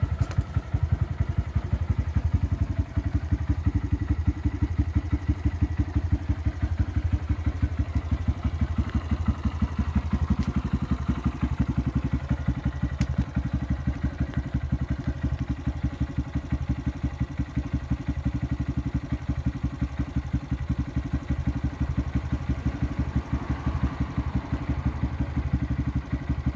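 2015 Honda Grom's 125 cc air-cooled single-cylinder engine idling through an aftermarket exhaust: a steady, even run of exhaust pulses that holds its speed throughout.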